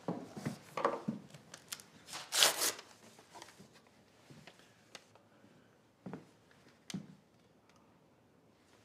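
A small slip of paper being handled and unfolded: soft rustles and clicks, with one louder crinkle about two and a half seconds in, then a few faint knocks.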